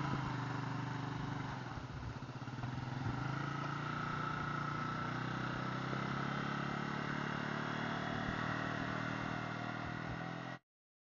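Small motorcycle engine running steadily while the bike and its loaded cargo trailer are pushed up a muddy slope. The sound cuts off suddenly near the end.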